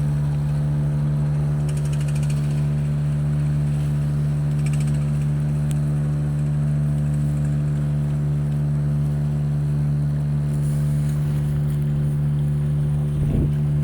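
A boat's engine running at a steady speed, a constant low drone with no change in pitch. A brief rush of noise comes near the end.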